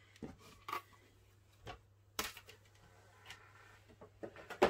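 Light, scattered clicks and knocks of craft items being handled and set down on a desk mat: a clear acrylic die-cutting plate and card pieces being moved. The sharpest knock comes near the end.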